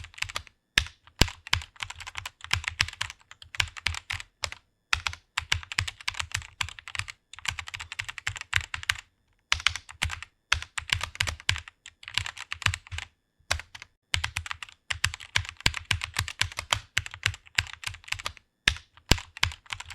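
Fast typing on a computer keyboard: quick runs of keystrokes broken by several short pauses.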